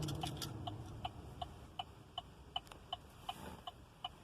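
Steady electronic ticking from a 2016 Chevrolet Suburban's instrument cluster, about two and a half ticks a second, heard just after the engine is switched off; the engine's low hum dies away at the very start.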